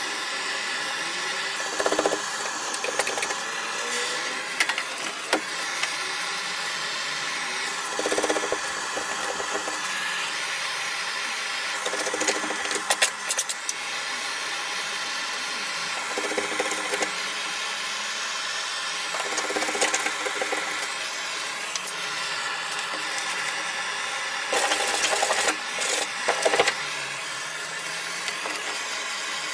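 Handheld gas blowtorch hissing steadily while heat-softened underseal is scraped off a car's steel underside. The scraping comes in repeated rasping bursts of a second or two.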